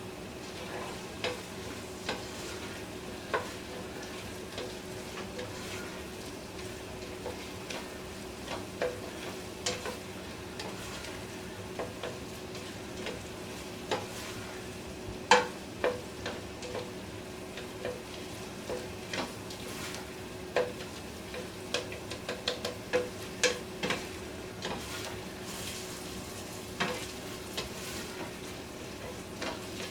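Diced onions sautéing in butter in a pot, a steady sizzle, while a spoon stirs them and knocks against the pot at irregular intervals.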